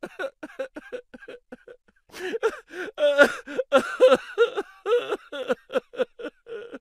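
A man crying loudly in a quick run of short, pitched sobbing wails, a few a second. The wails are faint at first and grow louder from about two seconds in.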